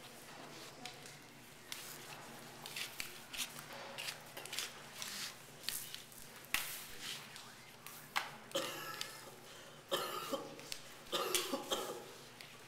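A person coughing in a few short fits in the second half, among scattered light clicks and taps.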